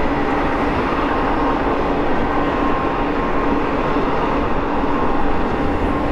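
BNSF double-stack container train cars rolling past on a downgrade: a steady rumble and clatter of wheels on rail, with a faint steady whine running through it.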